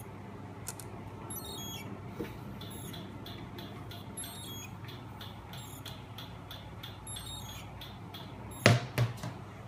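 Steady low electrical hum, with faint high-pitched chirps recurring every second or two. Two sharp knocks come close together near the end.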